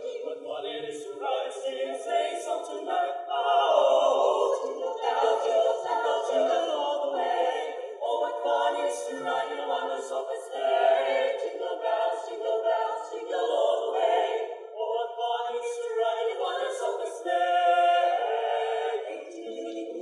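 Mixed choir of women's and men's voices singing a Christmas song a cappella in harmony, in continuous held phrases, amplified through stage speakers.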